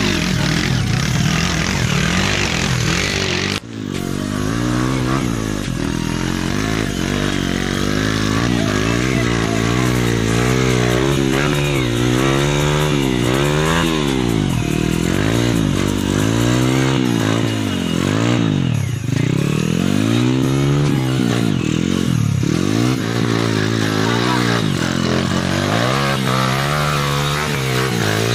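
Dirt bike engine revving up and easing off again and again, its pitch rising and falling, as the bike is worked up a muddy rut under load.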